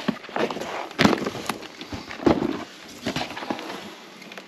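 Hands rummaging through a cardboard box of books and boxed goods: irregular knocks and clunks as items are moved and lifted, with rustling of cardboard and packaging. The loudest knocks come about a second in and a little after two seconds in.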